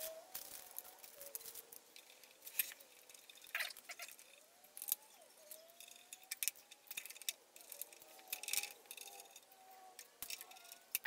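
Scattered light clicks, taps and rattles of small metal parts and a hand driver being handled while fitting parts onto a benchtop jointer.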